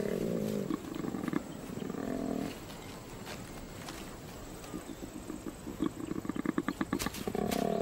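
Male koala bellowing: a few deep grunting calls, then a fast rattling run of pulses building into a louder call near the end.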